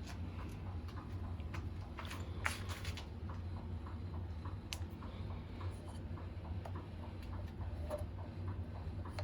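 Light, regular ticking a few times a second, with a cluster of louder clicks about two to three seconds in, over a steady low hum.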